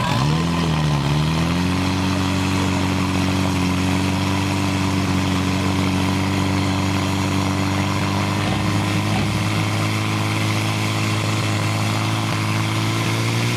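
Portable fire pump's engine running hard at high revs as it pumps water from the tank into the attack hoses. Its pitch dips briefly near the start, then climbs and holds steady.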